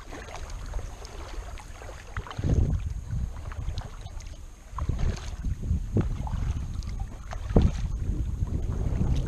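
Kayak paddle strokes in calm water: the blades dipping and pulling, with dripping splashes coming off them, over a low wind rumble on the microphone that swells several times.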